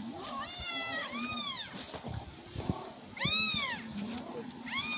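Kitten meowing over and over: high-pitched calls that rise and fall, several in quick succession at the start, then another about three seconds in and one more near the end.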